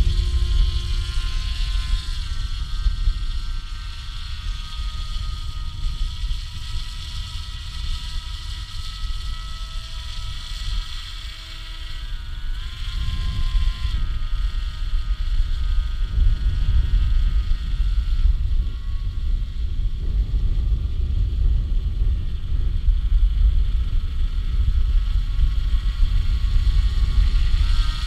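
Radio-controlled autogyro's motor and propeller droning in flight, the pitch shifting up and down several times, over heavy wind buffeting on the microphone.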